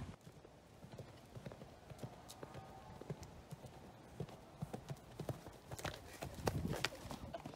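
Hoofbeats of a horse cantering on a soft sand arena: a run of faint, uneven thuds and clicks.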